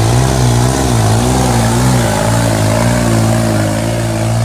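Modified New Holland tractor's diesel engine running hard under heavy load while dragging a weighted sled through soft earth. The engine note wavers up and down about twice a second, then steadies at a slightly higher pitch about two seconds in.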